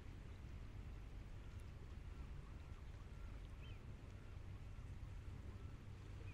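Quiet outdoor shoreline ambience: a steady low rumble, with a bird giving a string of faint short notes about twice a second through the middle and one brief higher chirp.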